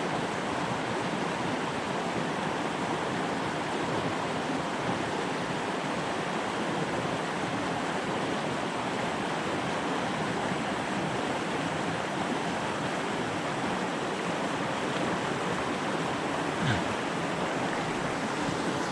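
Mountain stream water running in a steady, even rush.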